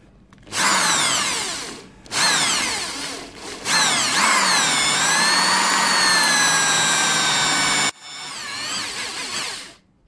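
Power drill with a roughly 4 mm bit drilling out the stripped T8 Torx pivot screw of a balisong. The motor whines in four runs, its pitch sagging as the bit bites into the metal screw head. The long middle run is steady, and a weaker last run stops shortly before the end.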